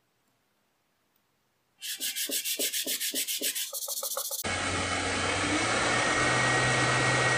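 About two seconds in, a small wooden wheel rim is rubbed back and forth on sandpaper glued to a flat block, in quick even strokes about five a second. Halfway through, this switches abruptly to a cordless drill running steadily. The drill spins a wooden wheel on a mandrel against sandpaper held in the hand, a steady hum with a faint whine.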